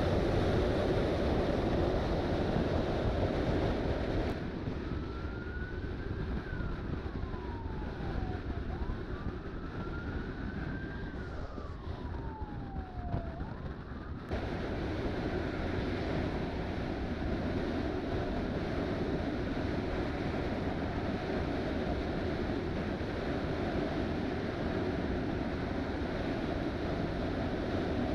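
Motorcycle riding at road speed, with wind rushing over the microphone and a steady engine and road drone. About four seconds in, the sound turns duller for roughly ten seconds while a siren wails, rising and falling twice.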